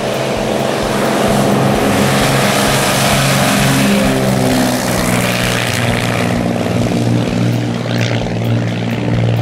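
Cessna 310J's twin six-cylinder Continental engines and propellers at full takeoff power on the takeoff run, loudest as the aircraft passes close by about three to five seconds in.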